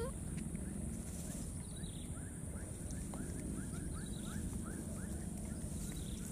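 Outdoor background: a steady high-pitched drone over a low rumble, with a quick run of short rising chirps between about one and a half and four seconds in.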